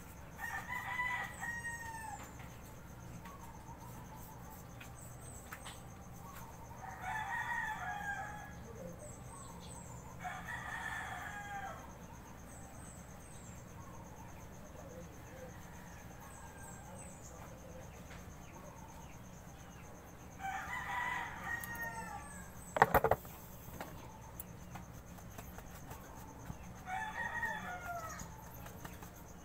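Roosters crowing, about five crows of one to two seconds each, spread out over the stretch. A single sharp click comes just after the fourth crow and is the loudest sound.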